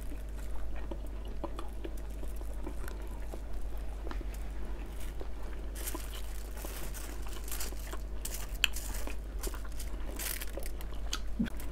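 Close-miked eating by hand: chewing, and fingers picking apart grilled fish and rice. From about six seconds in, a run of many small clicks.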